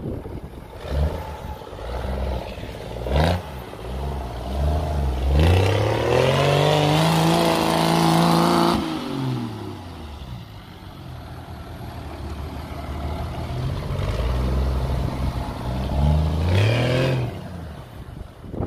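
Nissan Patrol K160's engine revving under load off-road. There are short blips about one and three seconds in, a long rev that climbs and falls back from about five to nine seconds, and another climb near the end.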